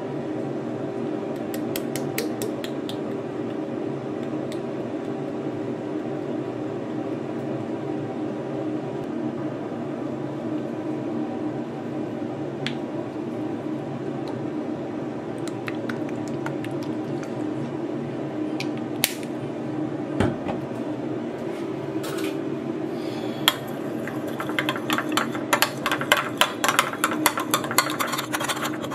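Bottles clinking lightly as seasonings are poured into a white ceramic bowl, over a steady background hum. From about 24 seconds in, a metal utensil clatters quickly and repeatedly against the bowl as the sauce is stirred.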